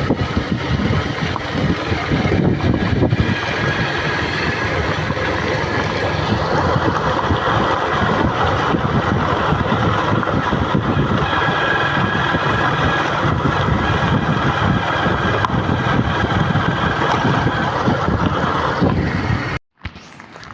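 A motor vehicle on the move, with a steady engine and road noise and wind buffeting the microphone. It cuts off abruptly near the end.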